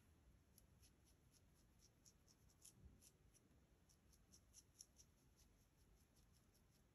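Faint quick scratches and taps of a felt-tip marker colouring in a small drawing, several strokes a second.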